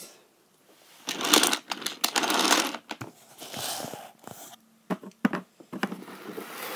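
Die-cast toy engine and trucks rolling along plastic toy railway track, the wheels rattling in stretches, with a few sharp clicks about five seconds in.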